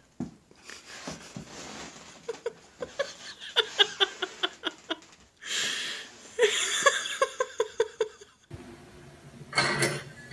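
A person laughing off-camera in two runs of short, quick bursts, after a few light taps.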